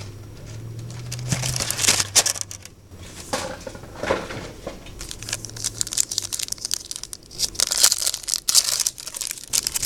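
Plastic wrapping on a Yu-Gi-Oh trading-card box being torn open and crinkled, a crackle that comes in bursts and is busiest in the second half.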